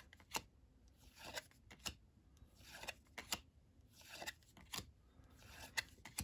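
Faint sound of baseball cards being slid one at a time off a hand-held stack: a soft swish of card stock rubbing over card stock, each followed by a light click, about four times.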